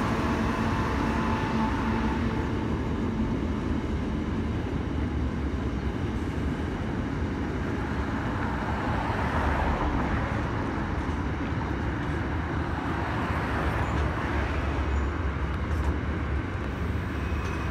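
Freight train rolling past: a steady rumble of wheels on rail, with a faint hum near the start that fades away.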